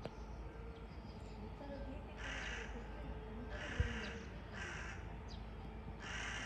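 Crows cawing: four harsh caws spaced about a second apart, with a single low thump near the middle.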